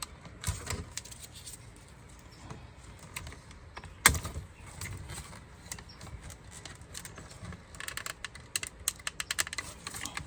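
Light plastic clicking and rattling from a car door's window switch assembly being handled and its wiring connectors unplugged, with one louder knock about four seconds in and a quick run of clicks near the end.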